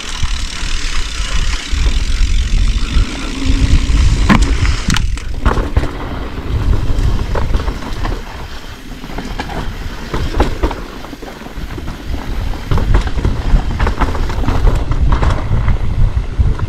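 Mountain bike descending a dirt trail: continuous wind rumble on the camera microphone, with tyre roll on dirt and scattered clicks and rattles from the bike over bumps.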